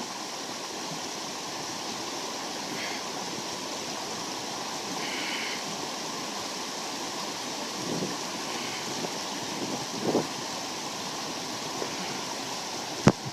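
Creek water rushing steadily, with a few faint brief sounds and a sharp click near the end.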